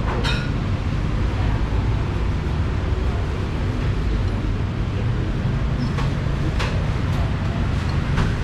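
A steady low rumble, with a few light clinks: one just after the start and three more near the end.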